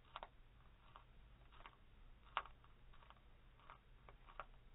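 Cecropia moth caterpillar chewing the edge of a leaf: faint, irregular crisp clicks, about two a second, with one louder click about two and a half seconds in.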